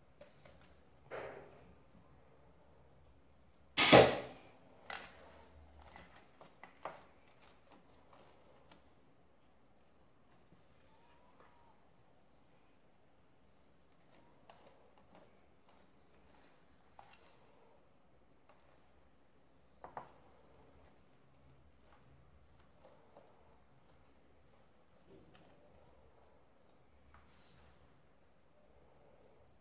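Quiet kitchen handling while cake batter is spread in a metal baking pan with a silicone spatula: one loud sharp knock about four seconds in, then a few softer knocks and taps, over a steady high-pitched tone.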